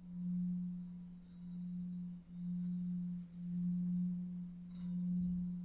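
A steady low background drone tone, a single pure pitch that swells and fades about once a second.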